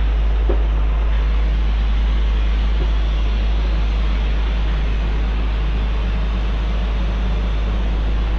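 Abrasive blasting on a boat hull: a steady roar of air and grit from the blast nozzle, with a continuous low rumble underneath.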